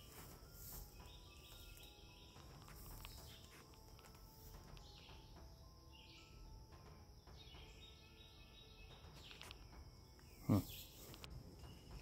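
Quiet woodland ambience: a faint steady high insect drone with scattered short bird calls. A brief louder noise comes near the end.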